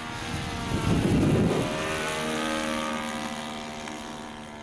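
Radio-controlled model airplane's engine running steadily in flight, with a louder, rougher swell about a second in, then easing off as the plane moves away.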